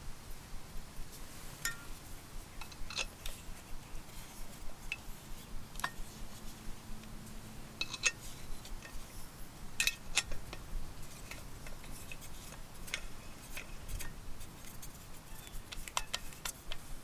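Scattered light clinks and clicks of small metal camp cookware and utensils being handled, irregular and separate rather than a steady rhythm.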